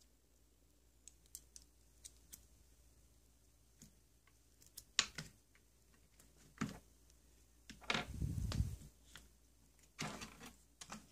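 Sparse small clicks and knocks of an iFixit tool kit's tools and plastic case being handled, with a few louder knocks and a longer scuffle about three quarters of the way through.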